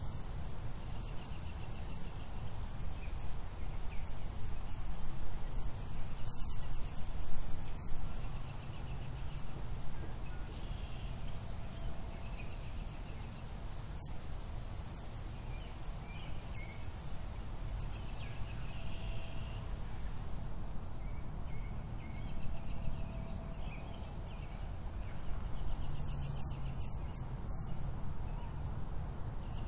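Outdoor ambience: small birds chirping and trilling again and again over a steady low rumble.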